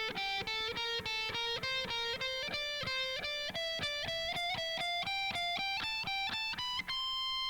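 Guitar playing a fast, evenly picked run of single notes that climbs steadily up a scale, ending on one held note near the end.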